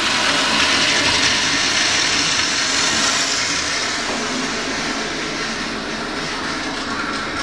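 A 2008 Gerber Ultra Flush toilet with a Sloan Flushmate pressure-assist vessel flushing: a loud, forceful rush of water and air. It eases after about four seconds into a steadier, softer hiss as the system refills.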